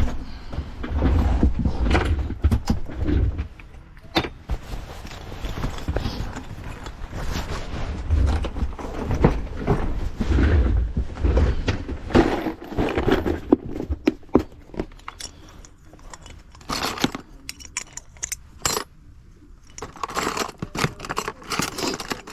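Keys jangling and metal lock parts clicking and clinking as a door lock is worked on. Rumbling handling noise runs through roughly the first half.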